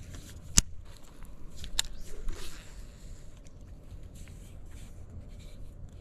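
Baitcasting rod and reel being handled: a few sharp clicks, two of them about a second apart, and faint scraping and rustling.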